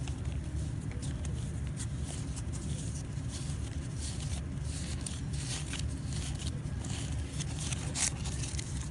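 Pokémon trading cards being handled and gathered into a stack: scattered light clicks and rustles of card edges, busiest near the end, over a steady low hum.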